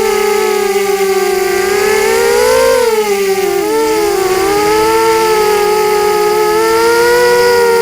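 FPV quadcopter's electric motors whining, their pitch rising about two and a half seconds in, then dipping, with the motors' tones splitting apart as they speed up and slow down separately.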